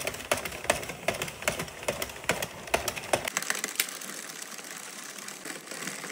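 Hand-cranked 48-needle circular knitting machine knitting rows: a steady mechanical clatter with sharp clicks, about two to three a second, as the needles run round the cam track. About three seconds in the low rumble drops away and the clicking goes on lighter.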